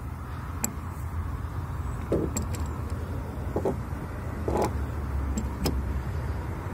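A handful of sharp metallic clicks and short clanks as a socket and ratchet wrench are fitted onto the wiper arm's retaining nut, over a steady low rumble.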